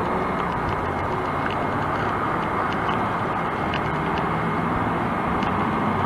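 Steady street traffic noise, cars driving past, with a faint low engine hum under an even rush.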